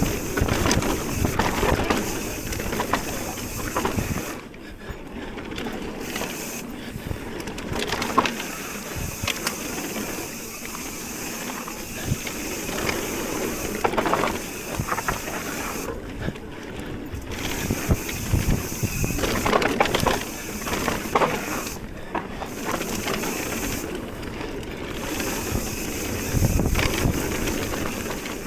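Mountain bike riding down a rough dirt trail: tyres crunching over the ground, with frequent knocks and rattles from the bike as it hits bumps, under steady rushing air noise.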